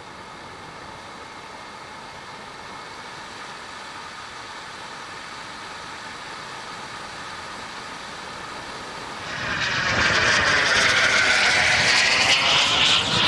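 Steady engine and airflow noise heard through a camera mounted on a model aircraft in flight. About nine seconds in, a much louder radio-controlled model jet cuts in as it flies past, with a high whine sweeping in pitch.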